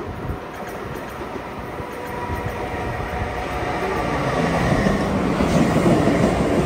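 Long Island Rail Road M3 electric multiple-unit train pulling into the platform, its running noise growing steadily louder as the front car draws level and the cars roll past.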